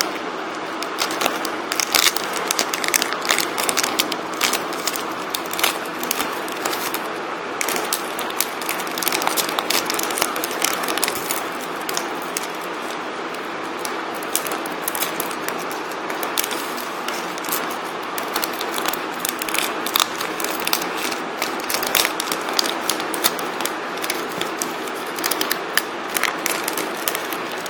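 Plastic and foil packaging being handled and torn open, with trading cards shuffled in the hands: many small crinkles and clicks over a steady hiss.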